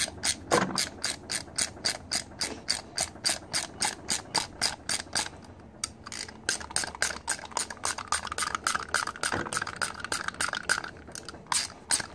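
Stanley STMT81207 hand ratchet clicking as its handle is worked back and forth, a rapid, even run of pawl clicks at about five a second.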